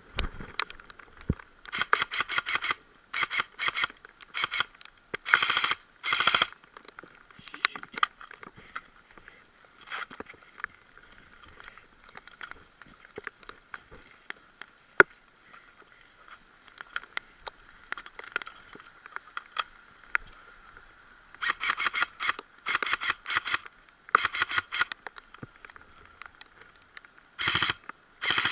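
Electric airsoft rifle firing several short full-auto bursts of rapid clicks, in two clusters with a long lull between.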